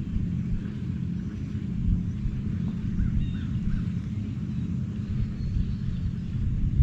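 Low, steady engine drone from a boat on the river, with a few short bird chirps about three seconds in.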